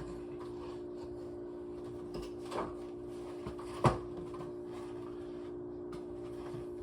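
A steady low hum of a few close tones, with a couple of light knocks of handling in a small room; the sharpest knock comes about four seconds in.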